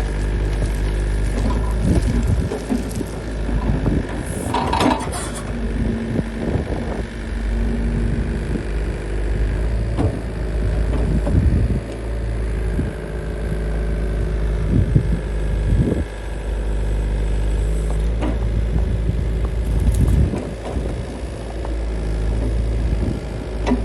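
Volvo ECR88 compact excavator's diesel engine running steadily, with repeated short knocks and clanks from the machine and a brief high screech about five seconds in.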